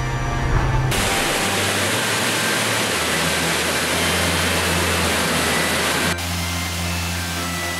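Water rushing through a canal lock, a loud steady rush that starts suddenly about a second in and cuts off about six seconds in. Background music plays under it and carries on over a fainter rush afterwards.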